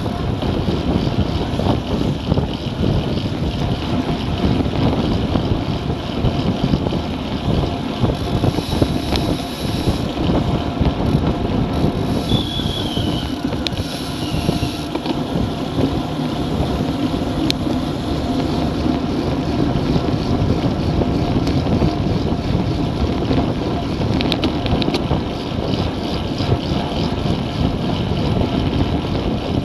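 Wind buffeting the microphone of a bike-mounted action camera, with road and tyre noise, as a road bicycle rides at about 35–48 km/h in a race group.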